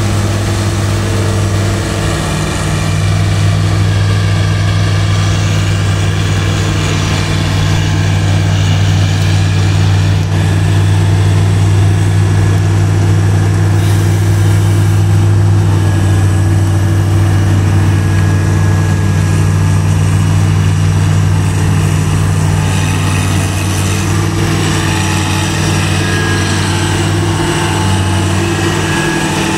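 Claas Crop Tiger 30 tracked combine harvester running at working speed: a loud, steady engine drone with a deep hum, getting a little louder a couple of seconds in.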